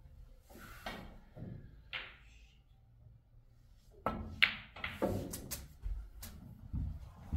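Snooker cue striking the cue ball with a sharp click about four seconds in. A second click follows as the cue ball hits a red, then further knocks and dull thuds as the red is potted and the balls settle.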